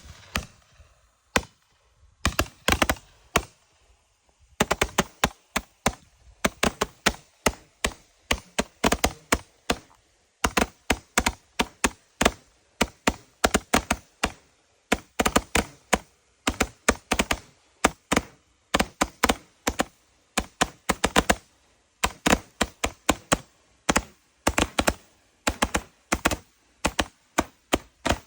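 Big Kings Fireworks 'Widow Maker' 128-shot consumer firework cake firing: a long run of sharp shots, several a second in uneven bursts, with a short lull near the start before the shots come almost without pause.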